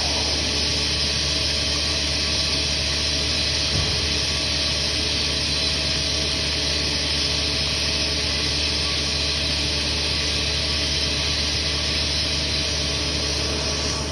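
O-M TM2-16N CNC vertical turning lathe running through a turning operation: a steady hiss of machining noise over a low hum.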